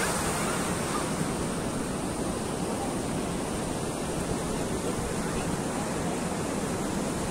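Ocean surf breaking and washing up on a sandy beach: a steady rush of noise.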